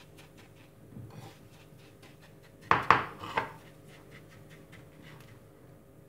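Metal spoon scraping and clicking against a ceramic plate while stirring a gritty paste of ground baked eggshell and apple cider vinegar. There are a few louder knocks about three seconds in.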